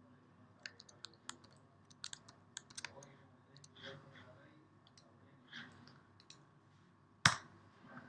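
Computer keyboard and mouse clicks: a quick run of light key taps in the first three seconds, a few scattered softer clicks, then one sharper, louder click near the end.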